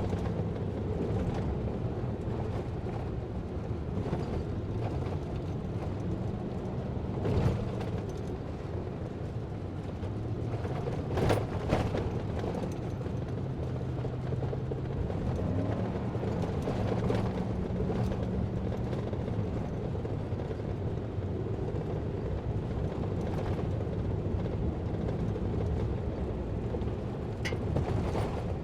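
A vehicle driving, with a steady low engine and road rumble and a few sharp knocks and rattles, the loudest a little before the middle.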